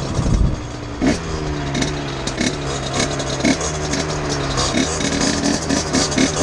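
Small two-stroke HM dirt-bike engine dropping to idle about a second in and idling steadily, with several short throttle blips in the second half; wind rush on the helmet microphone in the first second.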